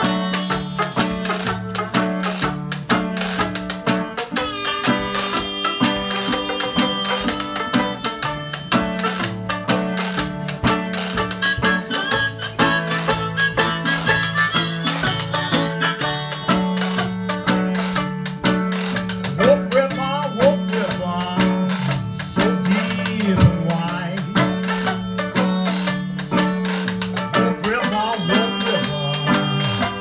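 Old-time jug band music with no singing: harmonica over a strummed banjo and a picked guitar, with bent harmonica notes about two thirds of the way through.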